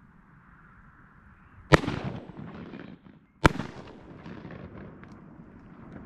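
Two shotgun shots about a second and a half apart, each a sharp crack followed by a rolling echo that dies away.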